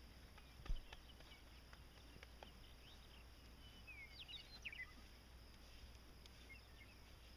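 Faint rural ambience: a steady high insect drone with a few short bird chirps around the middle. There is one sharp thump a little under a second in.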